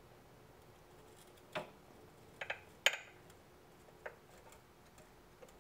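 Sharp metallic clicks as a pin spanner turns the stepped spring-preload adjuster on a motorcycle's rear shock absorber from one setting to the next: about five clicks, the loudest about three seconds in.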